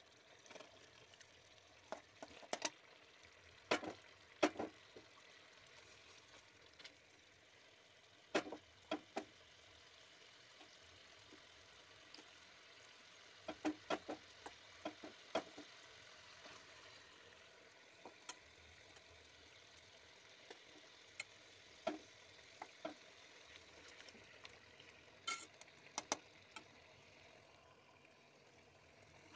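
Chicken pieces frying in oil and red masala in a metal kadai with a faint steady sizzle, while a slotted spatula turning them knocks and scrapes against the pan at scattered moments, sometimes in quick clusters.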